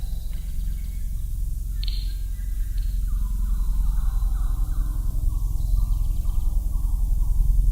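A run of short animal calls, each sliding down in pitch, two or three a second, over a steady low rumble; a brief high chirp comes about two seconds in.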